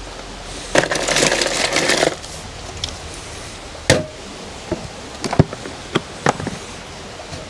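Wood fire burning in a portable fire pit, giving several sharp, irregular pops and cracks. A rustling noise lasts about a second near the start.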